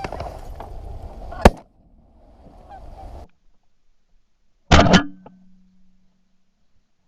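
Geese honking, then a single loud shotgun blast about a second and a half in. A second loud shotgun blast comes about three seconds later.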